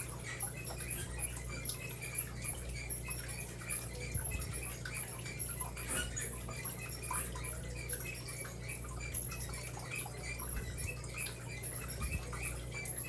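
Steady low hum of running aquarium equipment, an FX6 canister filter and a wave maker, with faint irregular ticking and a small high chirp repeating about three times a second.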